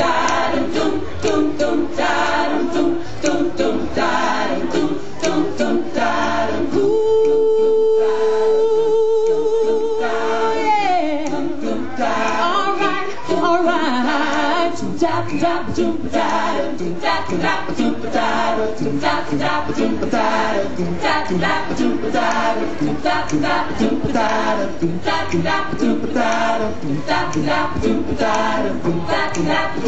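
A cappella choir singing with a steady, even beat running under the voices. About seven seconds in, a long note with vibrato is held for several seconds, then slides down as the full choir carries on.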